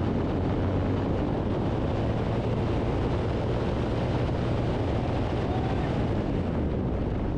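A Ford 460 big-block V8 running at raised revs and held fairly steady, a little higher through the middle, while the ignition timing is checked for full mechanical advance.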